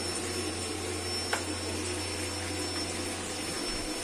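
A steady machine hum with an even hiss over it, and a single click just over a second in.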